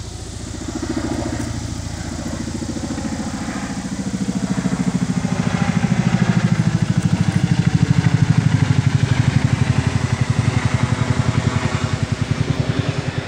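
Boeing CH-47 Chinook tandem-rotor helicopter passing low overhead, its rotor blades beating in a rapid, even rhythm that grows louder to a peak about two-thirds of the way through, then eases slightly.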